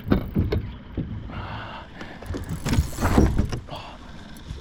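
Irregular knocks, clunks and rustling of gear being handled in a small boat, as a landing net is grabbed with a hooked fish on the line. The loudest stretch comes a little past halfway.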